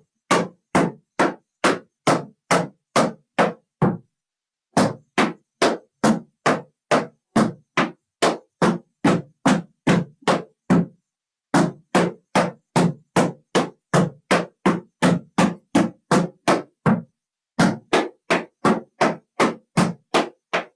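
Tap shoes striking a wooden tap board in a steady run of about three taps a second. The run is broken by short pauses about four, eleven and seventeen seconds in.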